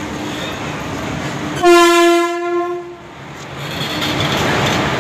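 WAP-4 electric locomotive sounding its horn in one blast of about a second and a half, about a second and a half in. The running noise of the arriving train then grows louder as the locomotive draws alongside.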